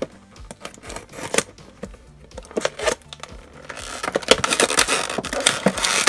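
Scattered clicks and scrapes of a utility knife and cardboard toy packaging being handled, then from about four seconds in a louder, steady crinkling of a clear plastic bag being pulled open.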